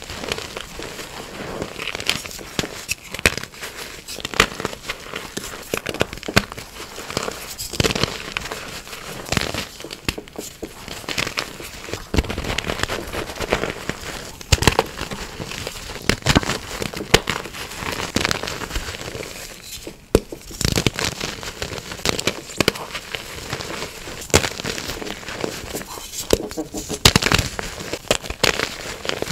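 Dyed gym chalk crumbling and crunching as it is crushed, a dense run of crackling crunches with many sharp snaps.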